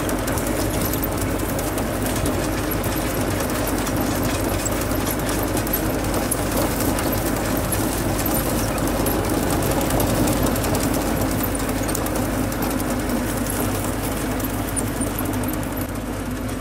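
Tractor engine running steadily while a tractor-drawn onion digger works through the row, its rod-chain conveyor rattling and clattering as it shakes soil off the lifted onions.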